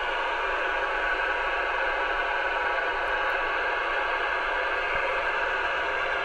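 Steady mid-pitched hiss from the ICOM IC-2730A 2 m FM transceiver's speaker: open-squelch receiver static with no station answering the call.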